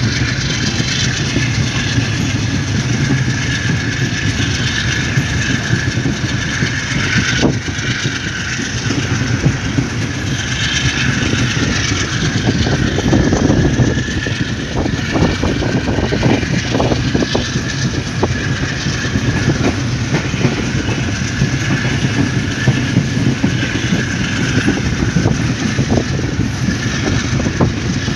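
Passenger train running at speed, heard from aboard a carriage: a steady rumble and hiss of wheels on rail, with a rapid run of clicks and clacks over rail joints, thickest around the middle.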